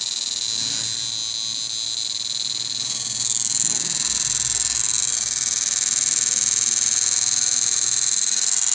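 Electric fishing machine (shock-fishing inverter, upgraded to 6,000 W) switched on and running, giving a steady high-pitched electronic whine with a buzzing undertone.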